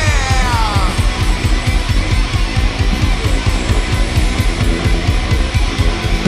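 Rock band playing live, instrumental: a held distorted guitar note slides sharply down in pitch in the first second, then loud distorted guitars over fast, driving drums.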